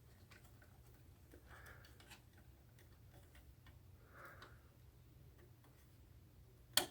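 Faint scattered ticks and two soft rustles of cables and plastic parts being handled, then one sharp click near the end.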